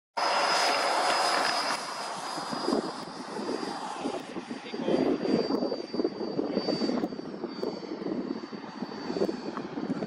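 Scaled F-22 model jet's engine running at full power for take-off, a steady high whine over a rushing noise, loudest in the first couple of seconds and then fainter as the jet climbs away. Irregular low gusts of wind buffet the microphone throughout.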